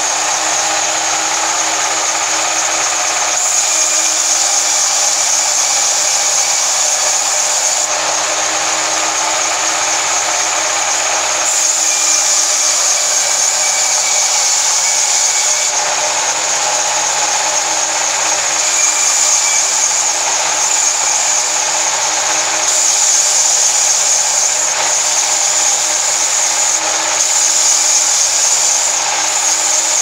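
Sawmill band saw cutting lengthwise through a log: a loud, steady hiss of the blade in the wood over the hum of the machine. Its tone shifts a little every few seconds as the cut goes on.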